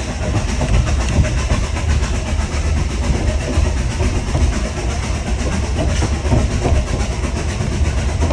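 Narrow-gauge Hunslet steam locomotive running, heard from its footplate: a steady, loud rumble and rattle of the engine and its wheels on the track.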